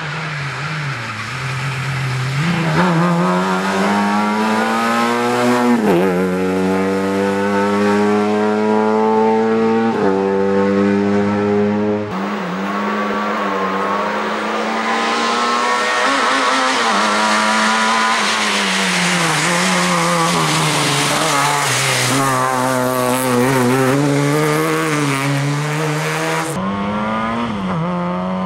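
Lada 2105 rally car driven hard on a stage: the four-cylinder engine revs up and drops sharply at each gear change, several upshifts in a row, then rises and falls through corners. A loud hiss of tyre noise runs through the middle stretch.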